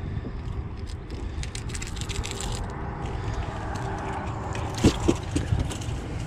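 Clicking and rattling as hands work a hook free from a largemouth bass's mouth over a rubber landing net, over a steady low rumble, with a few sharp knocks about five seconds in.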